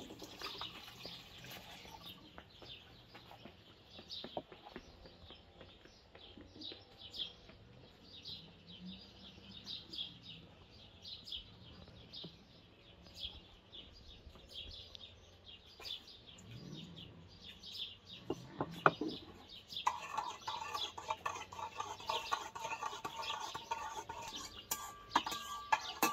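Small birds chirping repeatedly, with chickens clucking now and then. A steady hum joins about twenty seconds in.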